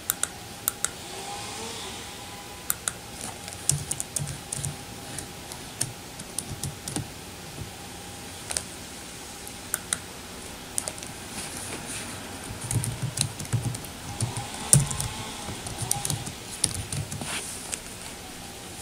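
Typing on a computer keyboard: irregular key clicks in short runs, busier in the second half.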